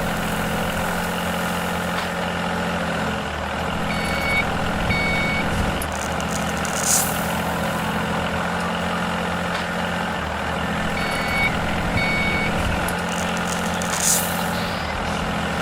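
Heavy vehicle engine running steadily, with a reversing alarm sounding two short beeps twice, about a third and three quarters of the way in, and two brief air hisses.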